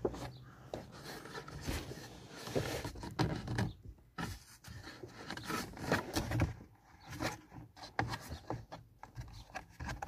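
Irregular clicks, knocks and rustles of plastic car interior trim being handled and pried around the steering column.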